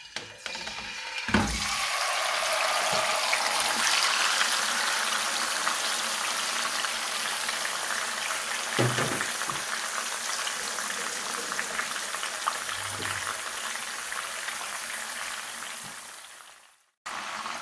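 A whole marinated mutton leg frying in hot oil in a kadhai: a low thump about a second in as the leg settles into the pan, then a steady sizzle with a couple of soft knocks, fading out near the end.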